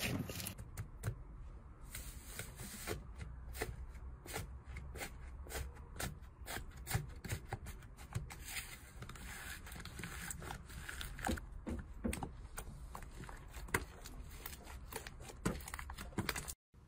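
Slime being kneaded, poked and pulled apart by hand: a stream of small irregular crackling clicks and pops. The sound cuts off abruptly near the end.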